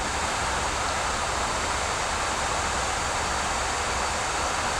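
Steady flight-deck noise of an Airbus A340-300 in descent: an even rush of airflow and ventilation with no change in level.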